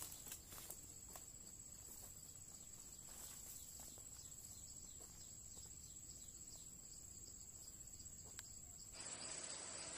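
Faint, steady, high-pitched insect drone with a few soft ticks, otherwise near silence. The background grows louder near the end.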